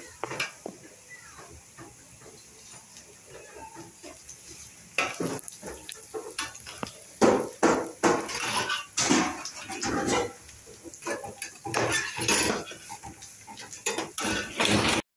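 A spatula scraping and stirring dried herbs around a metal frying pan on a gas stove, in a rapid run of short scrapes and clatters starting about five seconds in. Before that, a plastic bag rustles softly.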